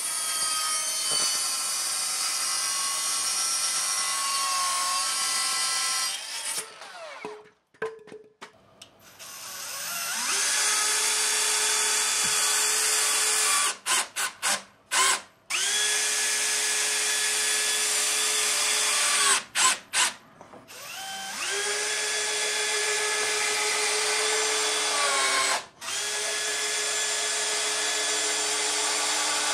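A Ryobi sliding miter saw runs up and cuts through a 4x4 post for about six seconds. Then a Hilti cordless impact driver drives long screws into a 2x4 bench frame: four runs of a few seconds each that rise in pitch as the driver spins up, with short stop-start trigger bursts between them.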